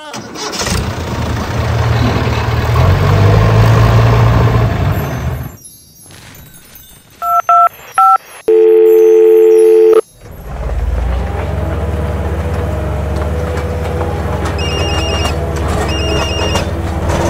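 A toy tractor's engine sound rumbles and fades out. Phone keypad beeps follow, then a long, loud, steady dial tone. An engine drone then starts and runs steadily, with three short runs of high phone beeps over it near the end.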